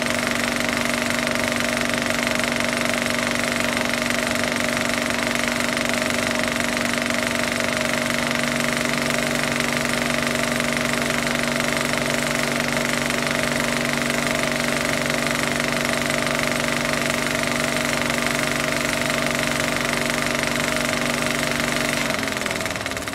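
A small machine motor running steadily with a fast mechanical rattle and hum, then slowing down near the end, its pitch dropping as it winds down.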